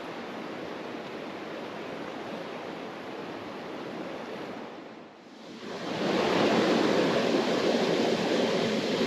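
Mountain river rushing steadily. About five seconds in the sound dips briefly, then comes back louder and fuller.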